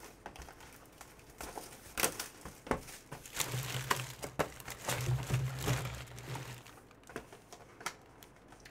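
Plastic wrapping crinkling and tearing as a sealed box of trading cards is opened by hand, in a run of quick crackles and clicks that dies down near the end.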